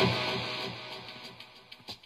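Guitar music fading out, near silence by the end.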